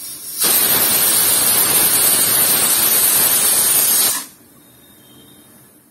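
Aluminium pressure cooker whistling. Steam rushes out loudly under the lifted weight valve for about four seconds, cuts off suddenly, and leaves a faint hiss. The weight lifts because the cooker has reached full pressure, and each such whistle counts toward the cooking time.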